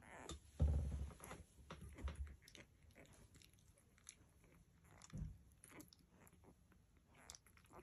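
Newborn Labrador puppies suckling at their mother's teats, a scatter of small wet clicks and smacks. A louder low rumbling thump comes about half a second in, and a smaller one around five seconds in.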